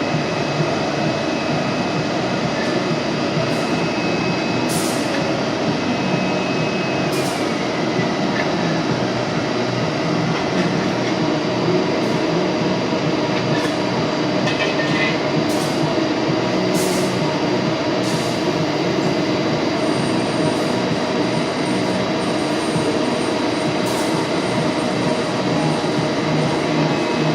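Granulator machinery running: a loud, steady mechanical noise with short high hissing ticks every second or two.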